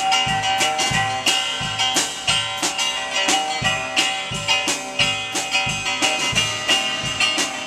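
Live blues band playing: an archtop guitar played loud over a steady drum beat of about two strikes a second.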